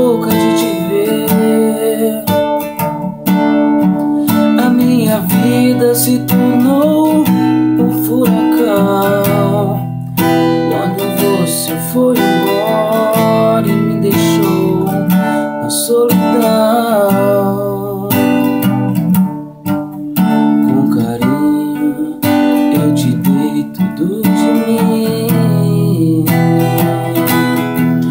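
A man singing a song while strumming an acoustic guitar, with steady strummed chords under the vocal melody.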